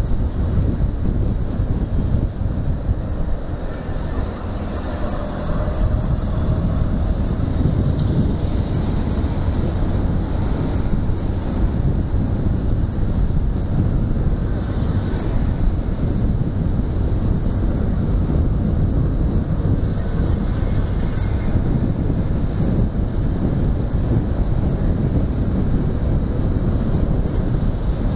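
Wind rushing over the microphone of a Honda Hornet 2.0 motorcycle riding at highway speed, a steady low rumble that briefly eases about four seconds in.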